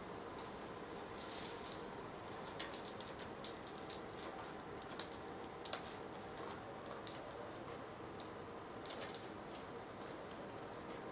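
Faint steady background hiss with a low steady hum, scattered with soft clicks and rustles from a person moving about.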